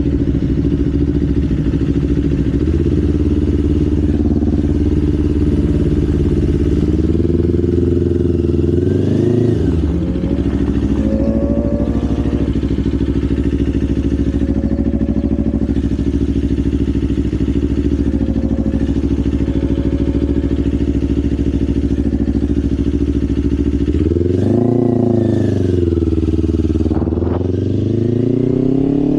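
Kawasaki Ninja 500's parallel-twin engine running under a rider at steady cruising revs. The revs climb and drop about a third of the way in, and again twice near the end, as the throttle is worked.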